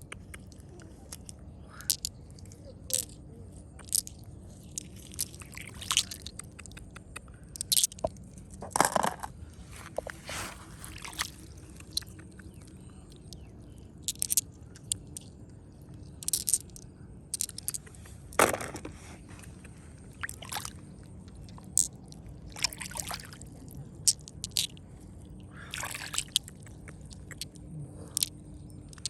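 Irregular sharp clicks, scrapes and crunches of stones, about twenty scattered short sounds over a low steady background.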